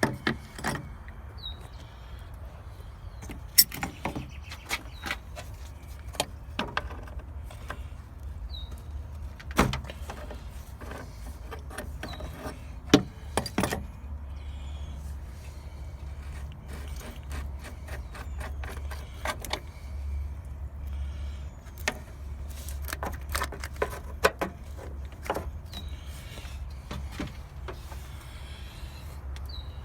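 Scattered clicks, clinks and knocks of hand tools and metal parts during repair work on a truck, over a steady low hum, with a few short bird chirps.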